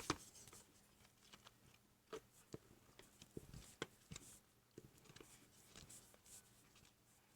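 Faint, irregular soft taps and scrapes of a wooden spoon stirring a sticky slime mixture of glue and contact lens solution in a bucket.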